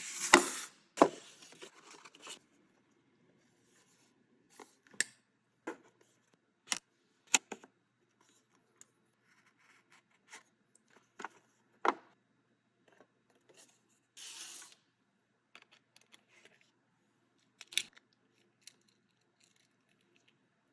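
Close-up sounds of skateboard parts being handled during setup: scattered sharp clicks and knocks, with a short rasping, tearing burst at the start and another about 14 seconds in.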